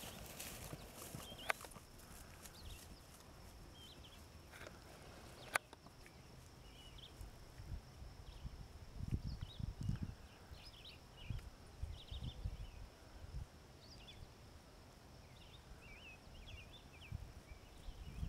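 Open-field ambience: small birds chirping on and off, with irregular low rumbles that swell about halfway through and again near the end, and two sharp clicks in the first few seconds.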